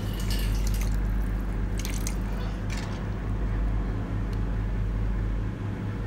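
A steel ladle stirring and pouring thin coconut-masala curry gravy back into a clay pot, with soft dripping and splashing and a few scrapes of the ladle against the pot in the first three seconds, over a steady low hum.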